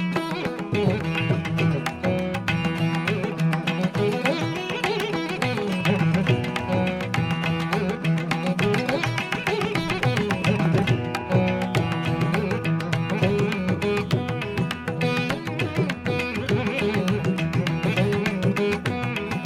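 Instrumental music, with held melodic notes over a steady percussive beat.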